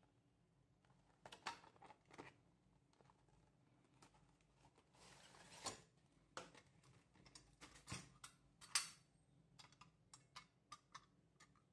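Faint handling noise from a folding steel shelf bracket and its packaging: scattered light clicks and taps as the bracket is handled and opened out, with a short rustle of plastic packaging about five seconds in.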